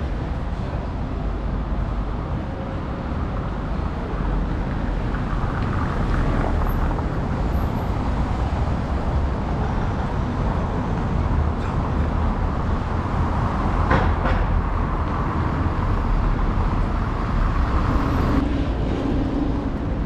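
Steady low rumble of a moving vehicle, with a brief sharp click about fourteen seconds in.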